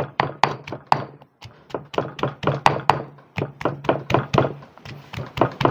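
Stone pestle pounding shallots into chilli paste in a stone mortar: quick, repeated thuds, several a second.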